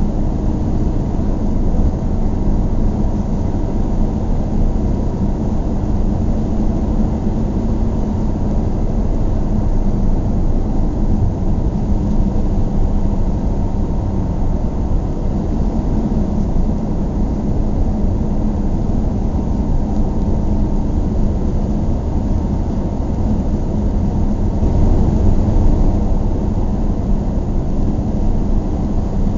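A car driving, its engine and tyre noise a steady low drone, swelling briefly about 25 seconds in.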